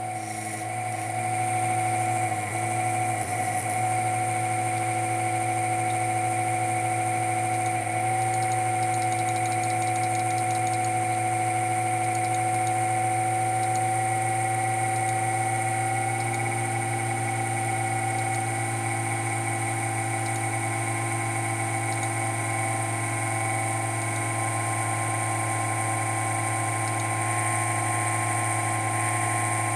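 Sapphire HD 5870 graphics card's squirrel-cage blower fan running, a steady whine over a low hum, its pitch creeping slowly higher. The noise comes from a loose fan bearing that jiggles from side to side.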